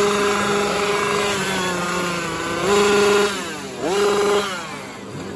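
Petrol chainsaw engine running steadily, then revved up sharply twice, about two and a half seconds in and again near four seconds, before dropping back.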